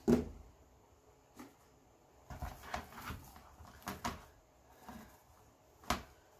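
Poly burlap mesh and wired ribbon being handled and fluffed by hand: scattered soft rustles and crinkles. A sharp clack at the very start as the cutters are set down on the cutting mat.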